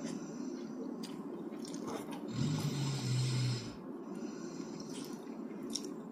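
A person snoring, one long snore in the middle, while someone chews quietly between snores, with a few small clicks.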